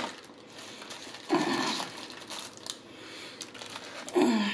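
A woman's two short hummed vocal sounds, the second falling in pitch near the end, with a few light clicks and crinkles as fortune-cookie wrappers are handled.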